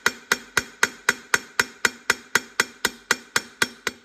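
A hammer striking a chisel set in a seized brake drum screw on a Massey Ferguson 135, a steady run of about four blows a second, each with a short metallic ring. The blows are shocking the rusted screw loose.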